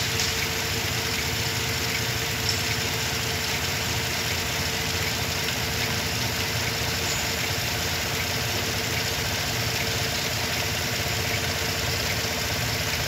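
A 2017 Chevrolet Silverado's engine idling steadily under an open hood.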